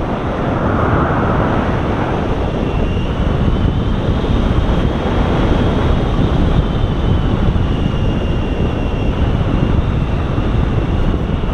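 Airflow rushing over the microphone of a camera mounted on a tandem hang glider in gliding flight: a loud, steady wind rush. A faint thin whistle joins it from about three seconds in.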